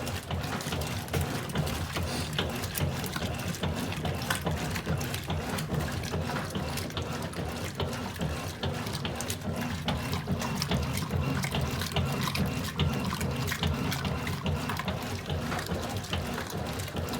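Water running and splashing in the tub of a Cônsul Pratice 6 kg washing machine, with a steady low hum underneath.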